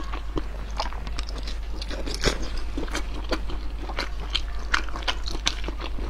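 Close-miked chewing of springy braised chicken combs: a string of short, irregular clicks and soft crunches from the mouth, a few each second.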